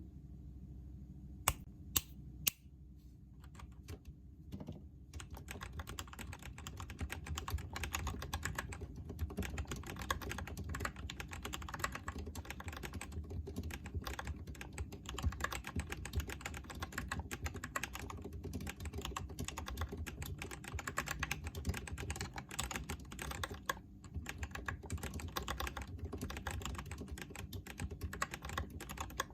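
Typing on a Delux T6 mechanical keyboard fitted with lubed Kailh Box Red linear switches, with Kailh Box Silent Pink switches on its right side. Three sharp clicks come early, then steady, fast typing starts about five seconds in. The lightly lubed stabilizers still rattle.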